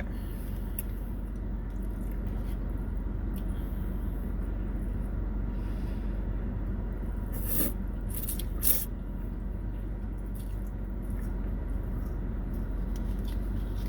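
Eating sounds: quiet chewing and small mouth clicks over a steady low background hum, with two brief sharp noises about seven and a half and eight and a half seconds in.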